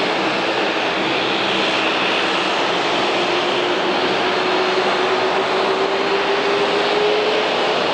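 Jet airliner engines running with a steady roar, over which a whine slowly rises in pitch and fades near the end.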